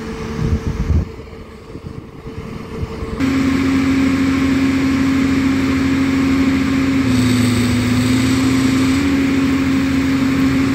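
Holland mobile flash-butt rail welder at work: a steady machine hum holding one pitch. It comes in abruptly and much louder about three seconds in, over a quieter low rumble.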